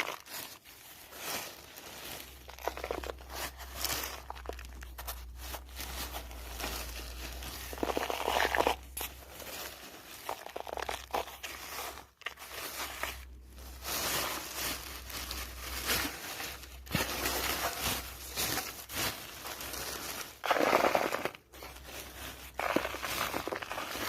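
Dry crumbled cement being crushed and poured, crunching and crackling in irregular bursts with short pauses.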